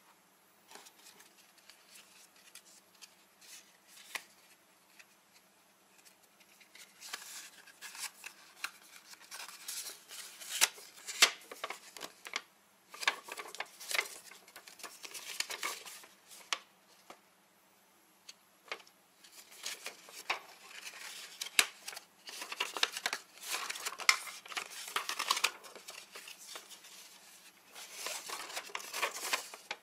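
Paper instruction leaflets being unfolded and handled, crisp rustling and crinkling in spells, with a short quiet gap about halfway through.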